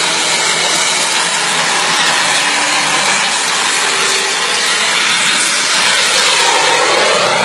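Radio-controlled model jet's engine at high power: a loud, steady rushing hiss as the jet hangs nose-up and climbs. The tone shifts near the end as the jet tips over and swings away.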